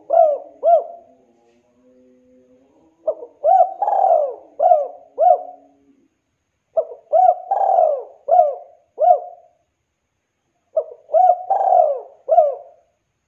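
Spotted dove cooing: the end of one phrase at the start, then three more phrases about every four seconds. Each phrase is a run of short coos with one longer coo near the middle.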